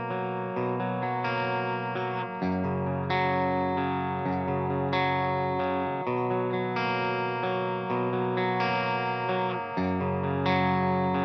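Electric guitar with Monty's Bethnal Green bridge pickup, played clean through a Fryette Deliverance 60 valve amp into a 1x12 cabinet and tuned to E flat: ringing chords that change every second or two.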